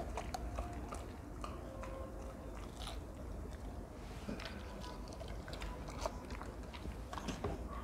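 A person chewing and biting pieces of fresh fruit, with many small scattered clicks.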